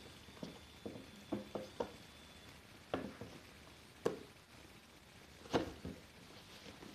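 Cardboard toy-car box being handled and set down on a carpet: scattered light taps, scrapes and knocks, the sharpest about three, four and five and a half seconds in.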